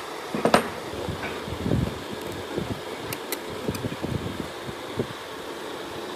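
Wooden joint pieces knocking and clunking against each other and the bench as they are handled and fitted together, a sharper knock about half a second in and softer thumps after it, over steady background noise.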